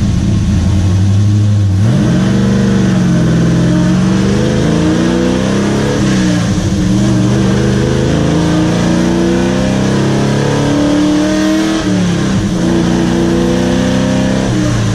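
The Dale race truck's engine, heard from inside its stripped, roll-caged cab. It holds a steady low note at first, then accelerates hard through the gears: about two seconds in, the pitch starts to climb, drops back at each upshift, and climbs again.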